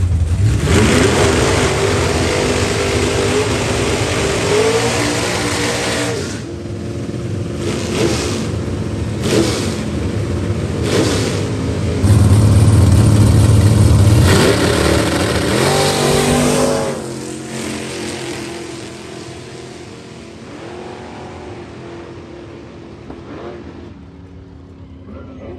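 Drag-race car engines revving hard, with a run of short sharp throttle bursts, then a loud full-throttle pass that fades away over the last several seconds.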